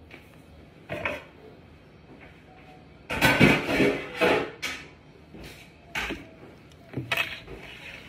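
Kitchen objects being handled: a few short knocks and clatters, with the longest, loudest run of them about three seconds in.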